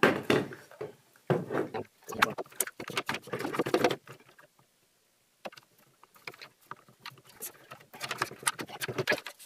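Handling noise: irregular rustling, clicks and knocks as things are picked up and moved, with a short pause about halfway through.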